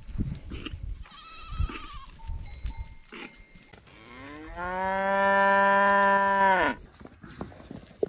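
A short high bleat from the goat herd about a second in, then a cow moos once: one long loud call that rises at first, holds steady for about three seconds and cuts off sharply.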